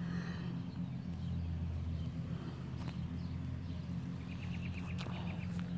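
Footsteps on grass and soil over a steady low mechanical hum, with a short rapid run of about eight ticks a little past four seconds in.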